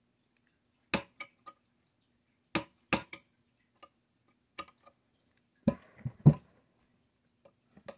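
Screwdriver handle tapping a steel pin punch to drive out the small pin holding the cocking lever of an HW30s air rifle: sharp metallic taps in two quick groups of three, then a couple of lighter ones. A few heavier knocks follow around six seconds in, the loudest sound here.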